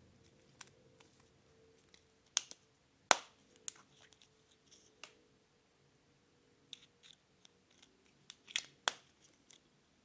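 Scattered sharp clicks and taps from handling an empty mister spray bottle, the loudest about two and a half and three seconds in, and a quick pair near the end.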